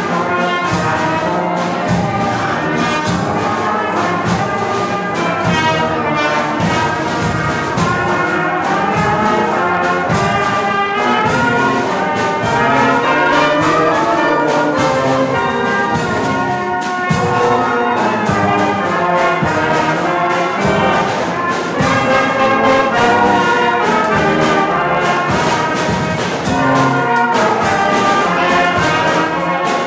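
A brass-and-drum band playing a tune: bell-up brass horns carry the melody over a steady beat of snare drums and a bass drum.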